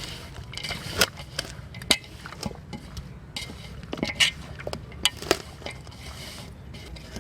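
Raw chicken being mixed into a yogurt-and-spice marinade in a vessel, with half a dozen sharp clinks against the vessel spread irregularly through the mixing.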